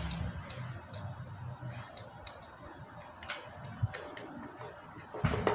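Hand screwdriver turning a screw into an aluminium door frame: scattered, irregular small clicks and ticks, with a louder cluster near the end.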